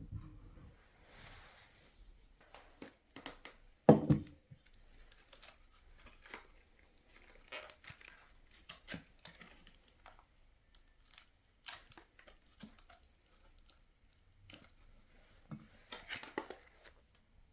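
Hands handling things at close range: scattered crinkling, tearing-like rustles and small clicks, with one louder knock about four seconds in.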